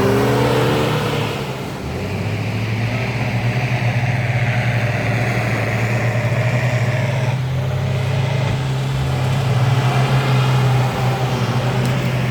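Lada Niva's engine held at steady revs with a pulsing note, the car straining in sand where it has got stuck.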